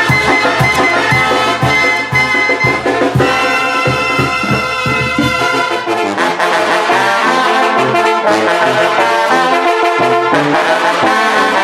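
Brass band playing a tune, with trombones and trumpets over a steady low beat. About five seconds in the low beat drops out and the horns carry on in held chords.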